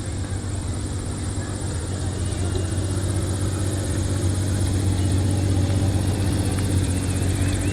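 Aircraft engine noise at an air show: a steady drone with a low hum that grows slightly louder.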